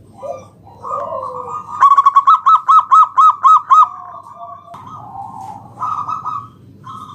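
Zebra dove (perkutut) singing: a few drawn-out coos, then a quick run of about eight clipped cooing notes, followed by more coos near the end.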